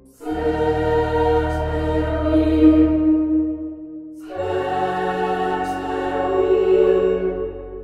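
Background music: two long sustained chords, the second starting about four seconds in.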